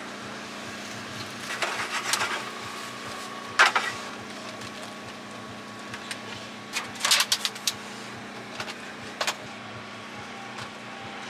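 Food-truck kitchen work: a few knocks and clinks of utensils and cookware, loudest about three and a half seconds in and in a quick cluster around seven seconds, over a steady machine hum.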